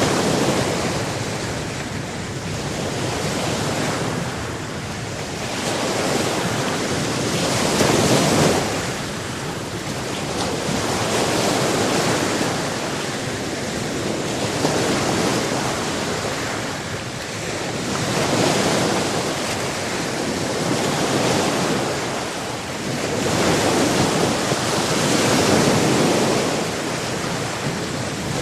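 Sea surf: waves breaking and washing up the shore one after another, the rush swelling and easing every few seconds, with some wind on the microphone.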